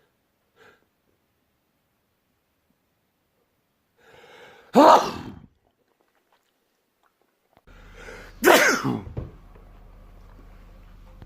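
Two loud human sneezes, each a short, quieter in-breath and then a sudden explosive burst: the first about five seconds in, the second about three and a half seconds later. A faint low hum sets in just before the second sneeze and carries on after it.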